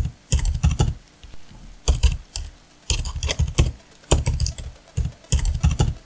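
Computer keyboard typing: about five quick runs of keystrokes, each under a second long, with short pauses between them.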